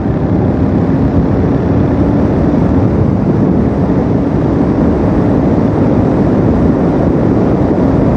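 Royal Enfield Super Meteor 650's 648 cc parallel-twin engine running hard at highway speed, close to 110 km/h, under a thick, steady rush of wind and road noise.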